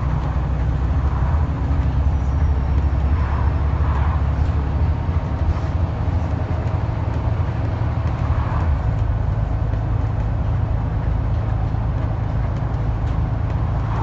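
Scania N94UD East Lancs OmniDekka double-decker bus on the move, heard from inside the passenger saloon: a steady low diesel engine drone with road noise.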